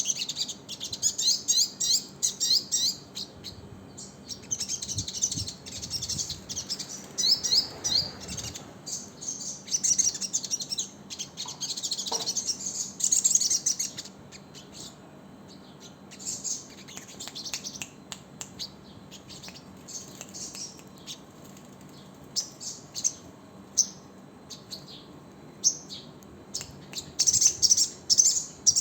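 Crimson sunbird (sogon) singing: runs of quick, high twittering chirps, dense and loud at first, thinning out in the middle, then picking up again near the end.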